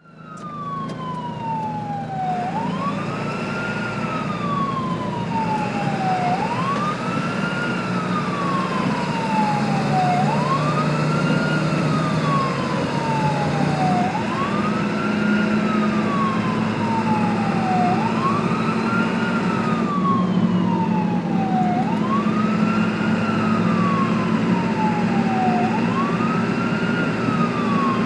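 Ambulance siren wailing in a repeating cycle, each one a quick rise in pitch and then a slower fall, about every four seconds. Under it there is a steady low hum. The sound fades in at the start.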